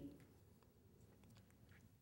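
Near silence: room tone, with a few faint ticks.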